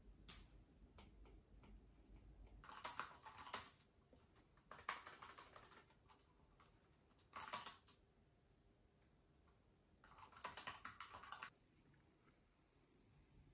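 Typing on a low-profile wireless keyboard: four short bursts of rapid key clicks, with near silence between them.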